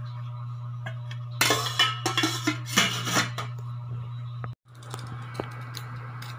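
Stainless steel pot and lid clattering in a quick run of metallic knocks for about two seconds as the lid is set on the pot, over a steady low hum.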